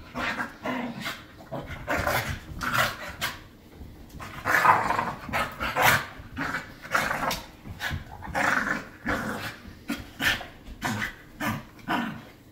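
Two puppies play-fighting, giving a rapid string of short growls with occasional yaps.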